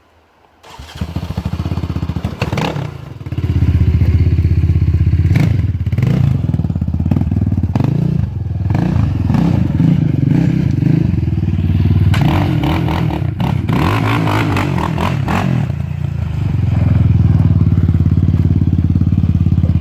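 Yamaha Raptor 700 ATV's single-cylinder four-stroke engine running off-road, coming in about a second in and loud from about four seconds, its pitch rising and falling as the throttle is worked, with scattered clattering knocks.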